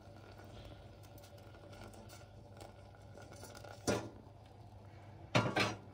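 Metal cooking pans and utensils knocking together: one sharp knock about four seconds in, then a quick double clatter near the end, over a low steady hum.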